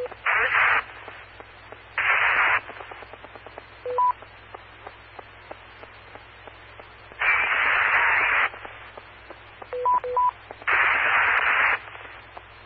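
Amateur radio repeater audio: four bursts of static hiss as a weak station keys up, too noisy to copy. Short low-then-high beeps follow after about 4 s and again near 10 s. A faint steady hum runs underneath.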